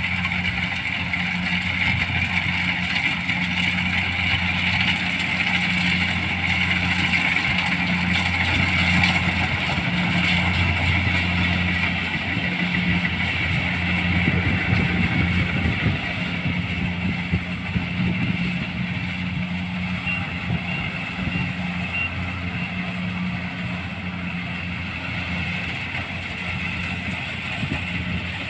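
Kubota rice combine harvester running steadily as it cuts rice: a diesel engine's low hum with a higher whirring from the machinery over it. It is loudest about a third of the way in and eases off a little toward the end.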